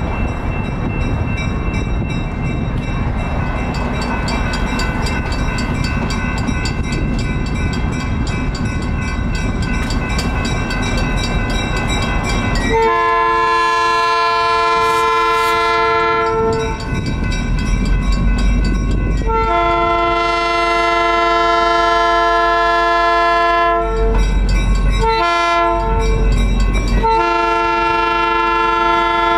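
Skunk Train diesel locomotive rumbling as it rolls closer. About 13 seconds in its multi-note air horn starts sounding two long blasts, a short one and another long one: the grade-crossing signal.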